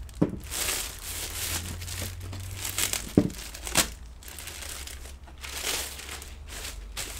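Clear plastic bag crinkling and rustling as a laptop is slid out of it, with a few sharp crackles along the way.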